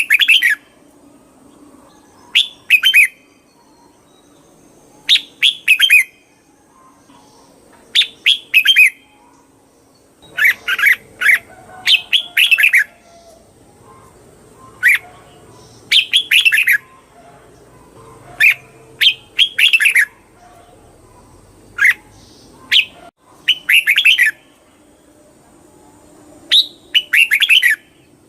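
Red-whiskered bulbul singing: short, bright chirping phrases repeated about every one to three seconds.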